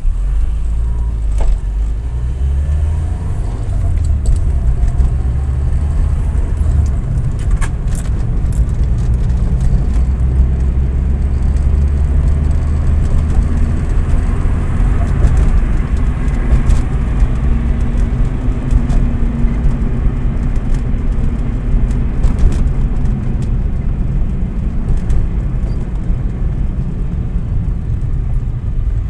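Car driving in traffic, heard from inside the cabin: a steady low engine and road rumble, with a few light clicks.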